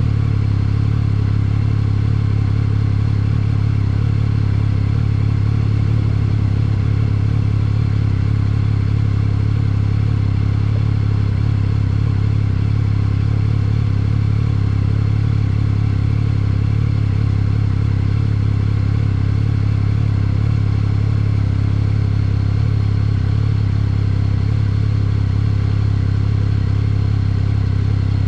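Yamaha XSR900's three-cylinder engine running at a steady, unchanging speed while the motorcycle is ridden, a constant low drone with no revving.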